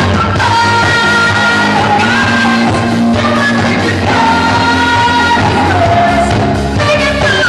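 Live pop-rock band playing, with two women singing long held notes into microphones over drums, bass and electric guitar.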